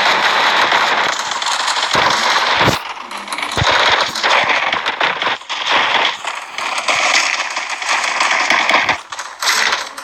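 Rapid, dense crackling and popping. About two seconds in it breaks into a few separate sharp cracks, and after that it comes in more broken, uneven runs.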